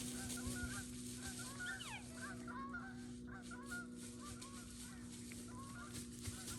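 A distant flock of birds calling, many short overlapping calls running on together, over a faint steady hum.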